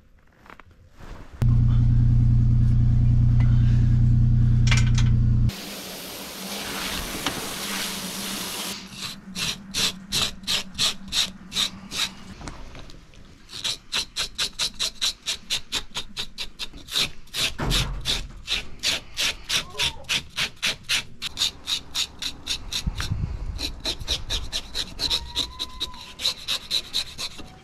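A metal scaler scraping scales off a salmon on a wooden cleaning table, in quick repeated strokes of about three a second, with a short break partway through. Near the start, a loud steady low hum lasts about four seconds and cuts off suddenly.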